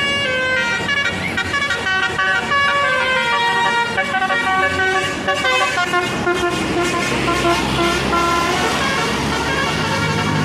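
Bus 'telolet' musical air horn of the basuri type, playing a tune of short held notes that step up and down in pitch.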